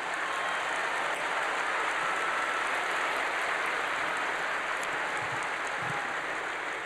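Large theatre audience applauding steadily, the clapping easing slightly near the end.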